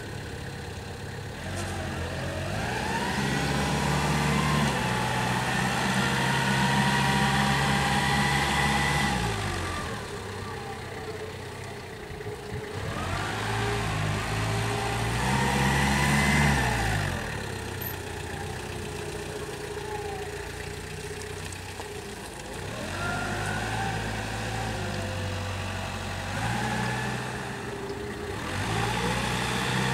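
Nissan EH02F25U diesel forklift's engine revving up and running hard as the truck drives, then dropping back toward idle, several times over. A whine rises and falls along with the engine speed.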